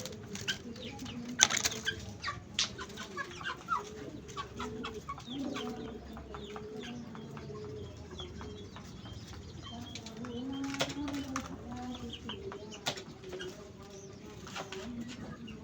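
Birds calling: low, curving cluck-like calls repeat every second or so, mixed with scattered short high chirps and sharp clicks.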